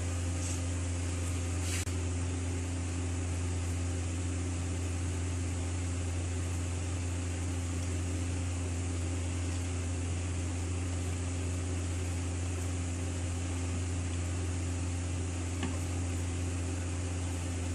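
Steady low machine hum with an even hiss over it, unchanging throughout, with a couple of faint ticks.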